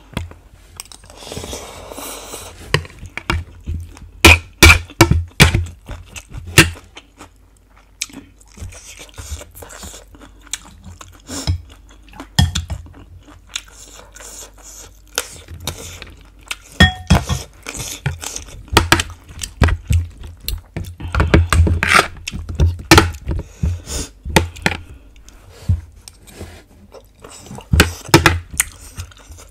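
A person chewing and eating pork ribs and black sticky rice, with a metal fork and spoon clinking and scraping on a plate. Many short, sharp mouth and cutlery sounds come at irregular intervals.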